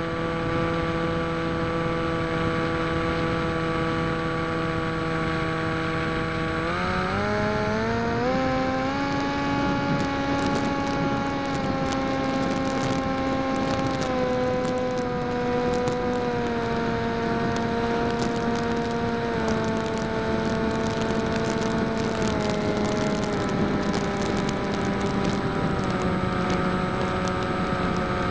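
Electric motor and propeller of a small foam flying-wing RC plane, heard from its onboard camera: a steady whine that rises in pitch about seven seconds in as the throttle opens, then steps down a little several times.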